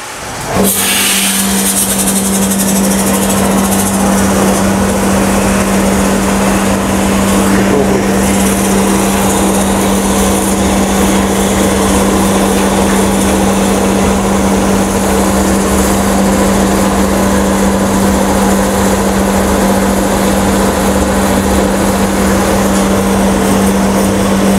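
Dustless sandblasting cabinet running as an alloy wheel rim is blasted inside it: a steady hiss of the blasting jet over a steady hum, starting about half a second in.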